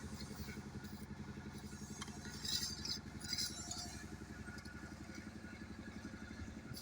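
An engine running steadily with a rapid, even pulse, with a couple of brief scraping sounds about a third of the way in.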